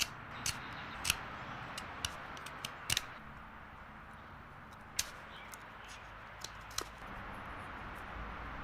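A wooden popper lure being worked by hand: a steady scraping, rubbing noise of tool on wood, broken by scattered sharp clicks.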